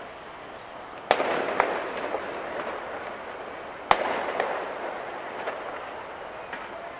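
Aerial fireworks bursting: two sharp bangs, about a second in and again about three seconds later, each followed by a spray of smaller crackles that fades away.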